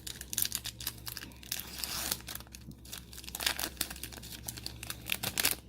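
Foil wrapper of a Magic: The Gathering booster pack being torn open and crinkled by hand, an irregular run of crackling and ripping.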